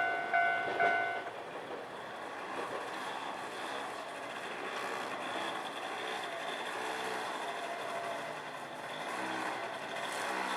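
Japanese railway level crossing's electronic warning bell ringing its last few pulsed, bell-like tones at about two a second, then stopping about a second in as the crossing clears. A steady background noise follows.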